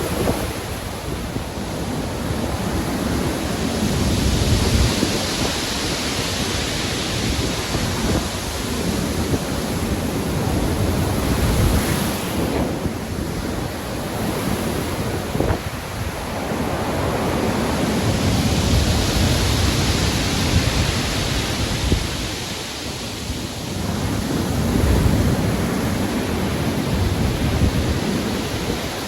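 Stormy sea: heavy surf breaking and washing in, the hiss of the water surging and ebbing in slow swells, over a deep low rumble and wind.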